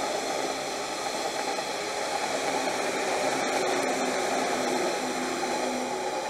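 Passenger trains running past close by, a steady rushing rumble of wheels on the rails.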